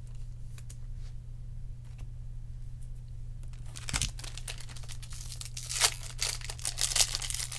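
Foil wrapper of a trading-card pack crinkling and tearing as the pack is opened, starting about halfway through and getting louder near the end, over a steady low hum.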